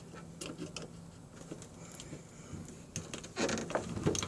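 Light clicks and scrapes of a screwdriver working at the plastic retaining tabs of a Chevy Tahoe rear window switch, busier and louder near the end.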